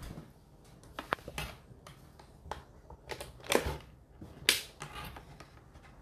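Whirlpool WFO3P33DLXUK dishwasher in its 65 °C main wash: water sprays around inside with irregular swishes and sharp clicks, the loudest two about three and a half and four and a half seconds in.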